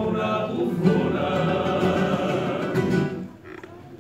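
Carnival comparsa choir singing a chord passage in several voices. The singing ends about three seconds in, leaving a short quiet lull.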